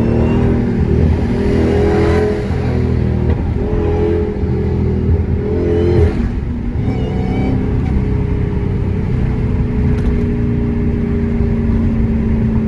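Dodge Charger Hellcat's supercharged 6.2-litre Hemi V8 running while the car is driven. The engine pitch rises and falls over the first six seconds, then holds steady.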